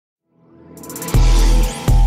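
Electronic intro music: a swell builds out of silence, then a heavy bass hit lands about a second in and another just before the end.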